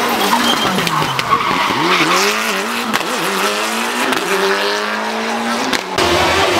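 Rally car engines at full throttle, the pitch dipping and climbing several times as the drivers lift off and change gear, with tyre noise from the wet, loose road. The sound switches abruptly to another car near the end.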